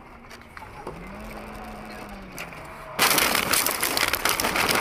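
Car interior road noise with a low tone rising and falling, then about three seconds in a sudden loud crashing, crackling noise lasting nearly two seconds as something strikes the car.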